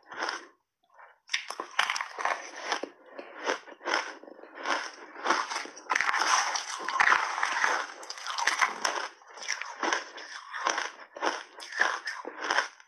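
Close-miked crunching and chewing of shaved ice mixed with milk powder, in quick, irregular crunches. About six seconds in, the spoon digs and scrapes through the tub of ice for a couple of seconds.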